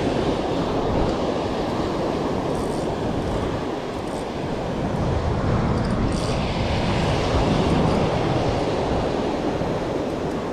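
Ocean surf breaking and washing up the beach, with wind buffeting the phone's microphone. A brief rustle of the phone being handled comes about six seconds in.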